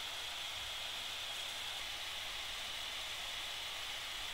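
Steady background hiss of a recording's microphone noise, with a faint low mains hum underneath.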